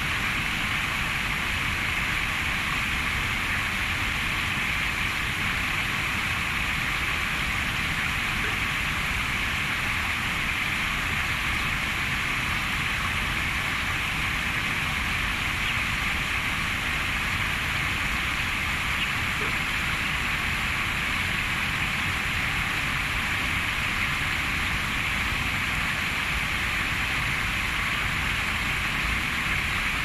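Small stream bubbling and running steadily, an even rush of water that never breaks or changes.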